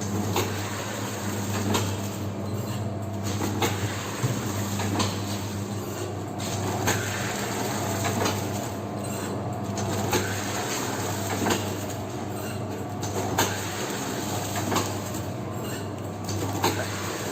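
Cooking-oil packing machine running: a steady hum with a clack about every one and a half seconds as it cycles.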